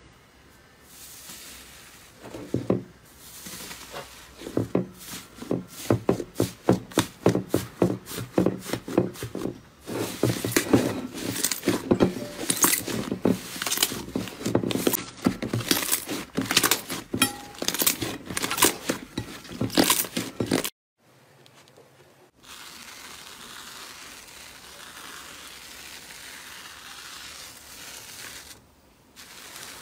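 Hands squeezing and pressing thick slime, making a fast, uneven run of crackling pops and clicks as air pockets burst. After a short break, a softer steady rustling hiss follows, and the pops return near the end.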